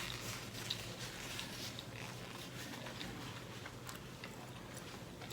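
Faint small clicks and light handling noises over a low steady hum, one slightly louder click less than a second in.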